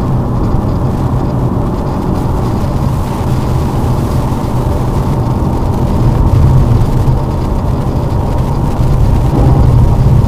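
Lada Vesta driving on snowy roads: a steady low rumble of engine and tyres that swells a little about six seconds in and again about nine seconds in.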